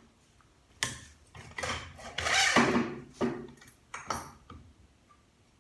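Metal transmission parts clinking and scraping as the automatic transmission's internals are handled and taken apart. There are a few sharp knocks and a longer scrape about two seconds in.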